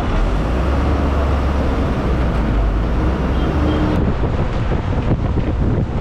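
City bus engine rumbling under load as the bus moves off, heard from on board, with road and wind noise over it.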